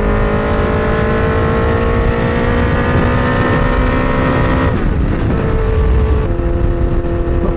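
2003 Kawasaki Z1000's inline-four engine through loud Danmoto XG-1 slip-on mufflers, accelerating under way. The pitch rises slowly for nearly five seconds, drops sharply, then holds steadier.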